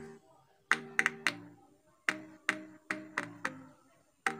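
A song played from a phone through a loudspeaker driven by a homemade 6283 amplifier: a tune of separate short struck notes, each ringing and fading, about two or three a second with short pauses between them.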